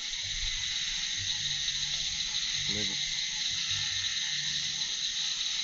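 Steady chorus of night insects such as crickets, with a brief spoken syllable about three seconds in.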